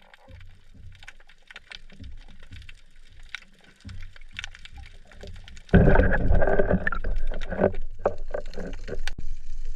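Faint scattered crackling clicks, then loud water splashing and gurgling that starts suddenly about six seconds in.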